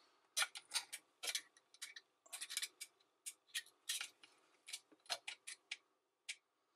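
Irregular light clicks and taps of a wire and clear plastic tube knocking against a Bosch dishwasher's stainless steel sump and tub floor during a sump seal replacement.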